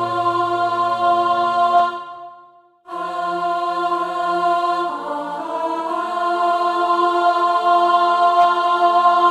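Closing held chords of a choral hymn arrangement, sung voices sustaining long notes. The chord breaks off about two seconds in, then a new long held chord begins and swells about halfway through.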